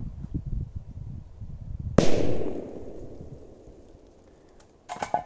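A Black Pirate firecracker explodes under a bowl about two seconds in: one sharp bang, with an echo that dies away over the next couple of seconds as the blast throws the bowl into the air.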